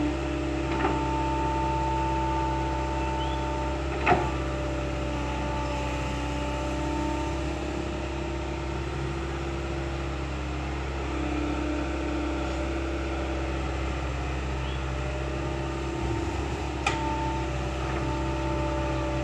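Kobelco excavator's diesel engine running steadily while the machine works, with a higher whine that comes and goes and three sharp knocks, the loudest about four seconds in.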